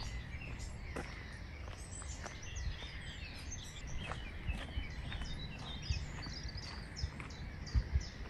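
Several small birds singing and chirping all through, over a steady low rumble. A few dull low thumps stand out, the loudest a pair near the end.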